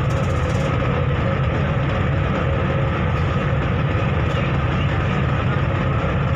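A ferry's engine running steadily: a loud, constant low drone with a steady hum over it.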